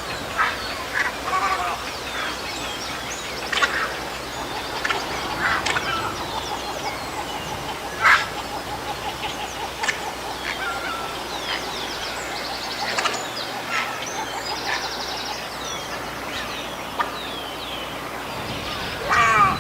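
A heron giving short, loud calls at irregular intervals, the loudest about eight seconds in, with fainter chirps and trills of other birds behind.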